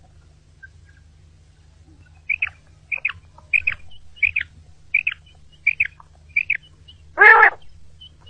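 Common quail calls: a run of seven short, high chirps at an even pace of about one every 0.7 seconds. Near the end comes one louder, lower, drawn-out call with a stack of overtones.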